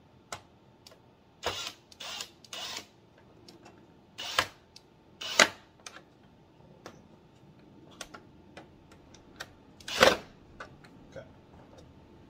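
Cordless Kobalt drill driving screws into a plastic printer housing in several short bursts, the loudest near the end, with light clicks of handling between.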